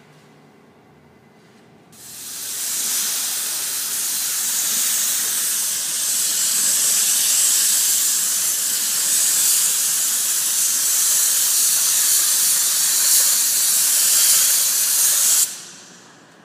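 Compressed-air gravity-feed paint spray gun hissing steadily while spraying a car fender, starting about two seconds in and cutting off sharply near the end.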